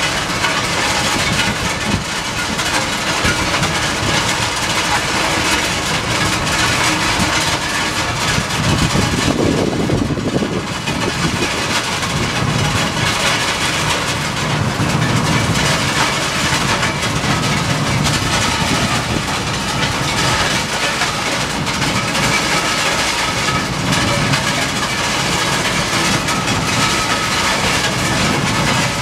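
A railroad ballast regulator, a track maintenance machine, running steadily as it creeps along the track, with its diesel engine working under a loud, even mechanical noise. The noise swells in the low range about nine seconds in.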